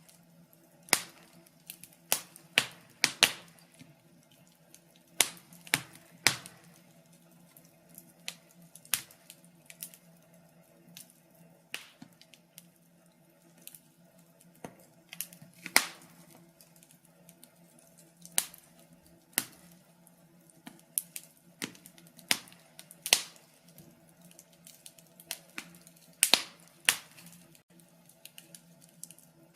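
Wood fire crackling in a fireplace: irregular sharp pops and snaps, some much louder than others, over a steady low hum.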